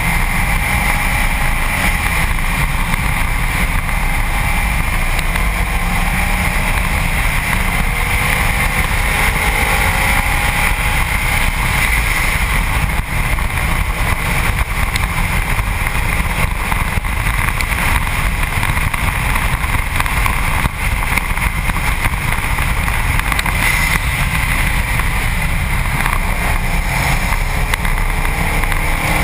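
Heavy wind and road noise buffeting a camera on the front bumper of a Subaru WRX STi at track speed. Underneath, the car's turbocharged flat-four engine rises faintly in pitch through the gears.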